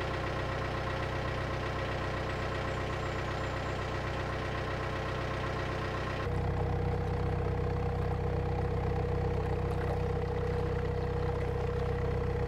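Narrowboat's inboard diesel engine running steadily with an even low chug, heard from on board the boat. About six seconds in the sound changes abruptly and becomes a little louder.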